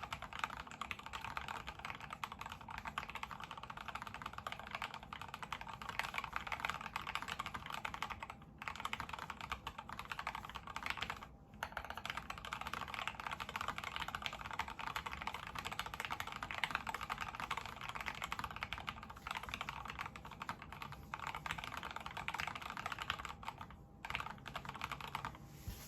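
Fast, continuous typing on a mechanical keyboard with Gateron Black Ink V2 linear switches lubed with Krytox 205g0, in an HHKB-layout Tofu case with KAT profile blank keycaps. The typing pauses briefly about eight and a half and eleven and a half seconds in.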